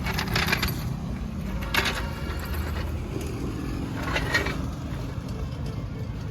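Short metallic clinks and rattles of hand tools at work on a car's rear disc brake, three or four times, over a steady low rumble.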